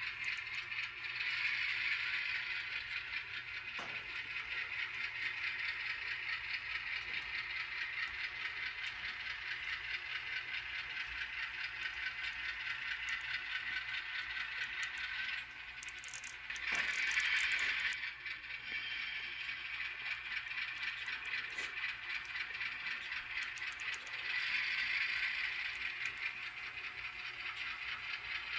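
HO scale Atlas ALCO RS3 model diesel locomotive running along the layout track, a steady light rattle with louder swells about a second in, midway, and near the end.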